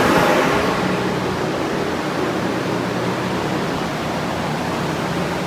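Many air-mover fans and a large dehumidifier running at once to dry out a flooded building: a steady rush of air with a faint low hum underneath.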